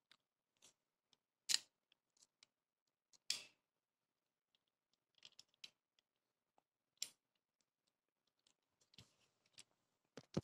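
Plastic clicks and snaps of a Lego-brick shotgun's trigger mechanism being worked: three sharper snaps a couple of seconds apart, with smaller ticks of bricks moving in between.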